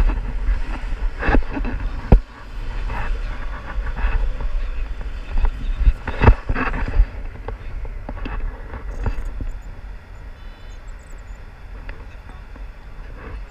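Wind noise from the airflow of a tandem paraglider in flight, rumbling on the pole-held camera's microphone, with gusty surges and a couple of sharp knocks. It eases off in the second half.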